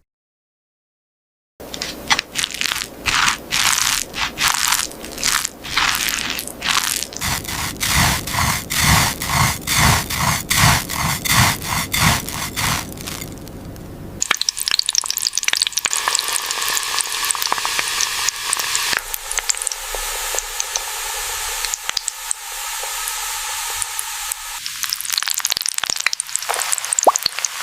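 ASMR food sound design: after a brief silence, about twelve seconds of rhythmic crunching and scraping, then a dense, steady crackling sizzle like food deep-frying in hot oil.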